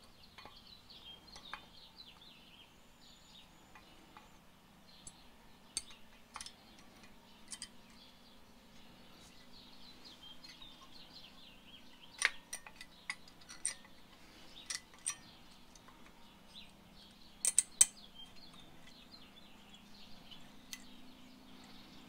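Faint, scattered metallic clicks and clinks as new brake pads are handled in a car's front caliper bracket, metal backing plates tapping against the bracket and its clips, with a few louder clicks near the middle and a pair later on. Faint bird chirping in the background.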